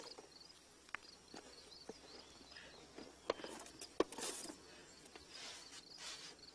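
Stones knocking and scraping as hands shift rocks in a dry-stone wall, with a few sharp clicks (the loudest about four seconds in) and short bursts of rustling, over a steady faint chirping of insects.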